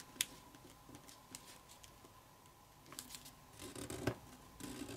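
Soft rustling and crinkling of a sheet of kami origami paper as fingers fold a flap to a crease and press it flat, with light scrapes and clicks, busier in the second half.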